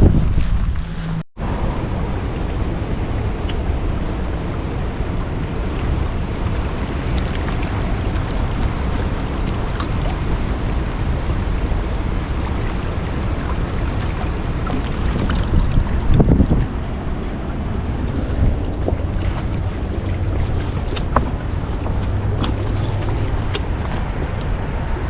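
Steady rushing noise of wind blowing over the microphone, with a brief dropout about a second in and scattered faint ticks.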